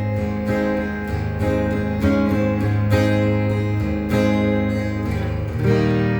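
Acoustic guitar strummed in chords, a steady instrumental passage with a fresh strum about every second, ahead of the vocal entry.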